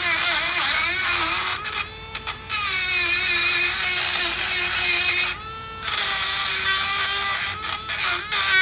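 Dremel rotary tool running at high speed against the rusted brake caliper bracket where the pad hardware sits, cleaning off rust buildup. A steady high whine that wavers in pitch as it works, with two brief drops in level.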